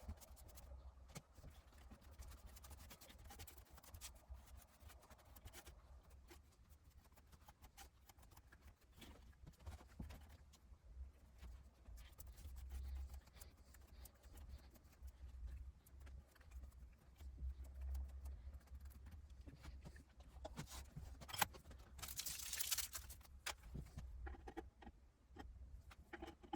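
Faint scattered clicks and light scraping, like small objects being handled, over a low steady hum. There is one sharp click about three quarters of the way through, then a brief louder scraping rush.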